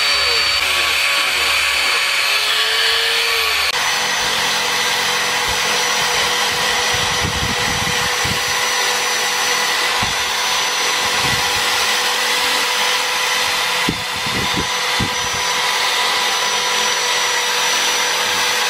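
Power-tool motor whine with the grind of a spinning abrasive on wood. The whine changes pitch abruptly about four seconds in, after which a corded electric drill spins a sanding wheel against the carved wood, with a few brief low bumps as the piece is pressed and turned.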